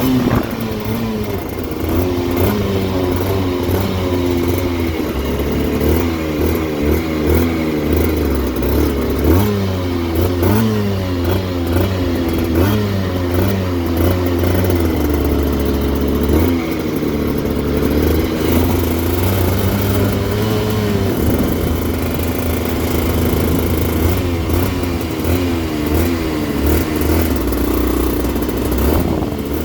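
2008 Aprilia RS125's 125 cc single-cylinder two-stroke engine running and being revved again and again, its pitch repeatedly rising and falling.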